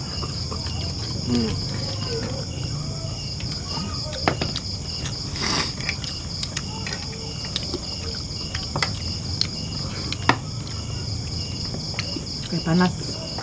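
Night insects chirring steadily in a high, evenly pulsing trill, with a few sharp clinks of a spoon against plates now and then.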